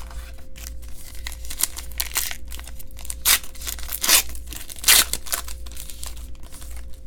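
Trading card pack wrapper being torn open and crinkled, a run of papery rips and rustles with the loudest tears about three, four and five seconds in.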